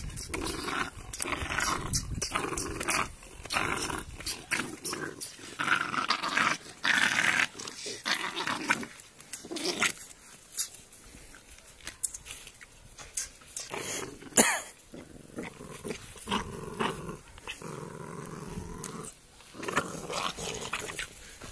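Three-month-old pitbull puppy growling in short repeated bouts, with scuffling and clicking noises around it and one sharp knock about fourteen seconds in.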